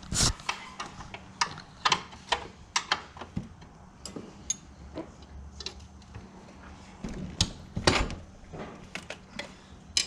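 Hand tools working the ATV's rear axle and chain adjuster nuts: irregular metallic clicks and clinks, a few a second, with a loud clank right at the start and another about eight seconds in.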